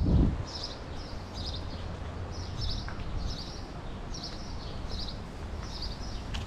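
Small birds chirping repeatedly, clusters of short high chirps about once or twice a second, over a steady low background rumble. A brief louder low rumble dies away right at the start.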